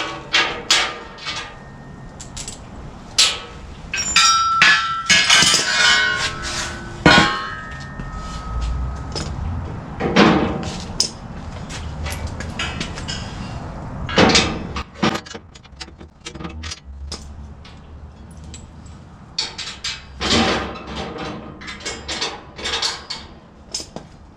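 Steel parts being handled and fitted: repeated metal clanks and knocks as angle iron and trailer ramp pieces are set in place for bolting, with a stretch of ringing clangs a few seconds in and a couple of longer scraping sounds.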